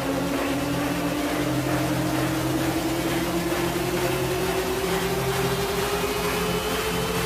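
Electronic trance music in a build-up: a synth tone rising slowly and steadily in pitch over held chords and an even low pulse.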